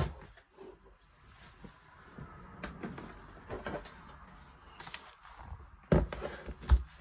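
A laptop being handled and turned over on a work surface: scattered light clicks and knocks, with two heavier thumps near the end as it is set down.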